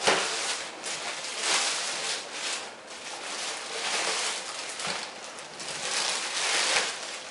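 Clear plastic bag crinkling and rustling in irregular swells as a foam model-jet fuselage is handled and pulled out of it.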